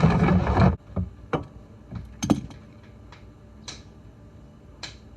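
Hand work at a car's oil drain plug: a brief loud rushing noise in the first second, then about five separate sharp clicks of metal spread over the next few seconds.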